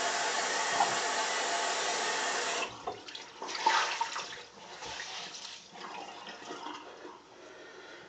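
Bathroom sink tap running steadily, shut off sharply about two and a half seconds in, followed by irregular splashes and drips as a wet towel is handled.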